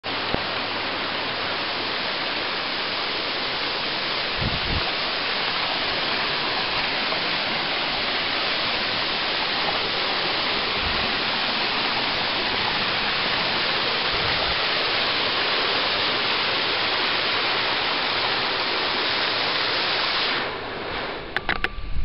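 Waterfall pouring into its pool: a steady, dense rushing of water. About twenty seconds in, the rush drops away and a few sharp clicks follow.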